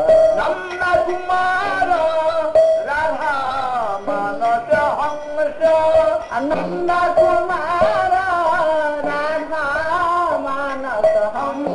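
Devotional kirtan: a man's voice singing a Vaishnava hymn with instrumental accompaniment, the melody gliding over steadier held notes.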